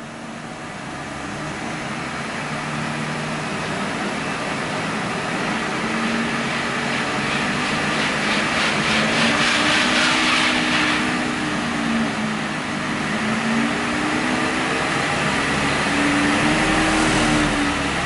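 Truck's engine and driveline running in drive with the left front wheel spinning free off the ground. The sound builds over the first several seconds into a steady drone with a hum that wavers up and down in pitch: the wheel-bearing hum, which points to a worn left front wheel bearing.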